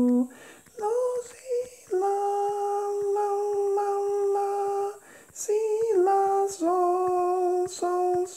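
A woman singing a slow solfège melody unaccompanied, holding each note for a beat or more. A short rising phrase comes in about a second in, then one long held note from about two to five seconds in, then a string of shorter notes.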